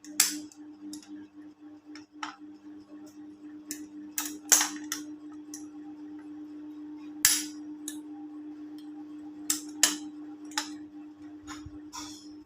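Sharp, irregular clicks and clacks of metal parts and tools being handled during work on a starter motor, over a steady low hum.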